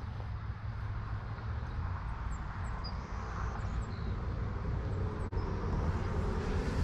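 Steady low vehicle engine rumble in outdoor ambience, with a few faint high chirps and a single sharp click about five seconds in.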